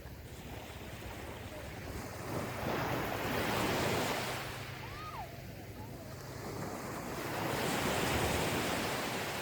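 Gentle ocean waves breaking and washing up a beach: two swells of surf about four seconds apart over the steady low rush of the sea.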